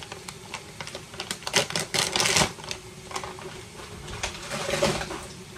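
Shrimp frying in olive oil in a pan, crackling and spitting in irregular clusters of sharp pops.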